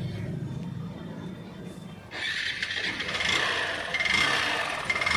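Hero Passion Pro BS6 single-cylinder engine running with heavy mechanical clatter and knocking, getting suddenly louder about two seconds in. The noise is the crank and piston sound of a worn-out engine that also gives heavy white smoke.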